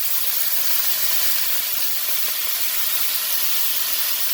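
String beans glazed with teriyaki sauce sizzling steadily in a very hot pan, left to brown.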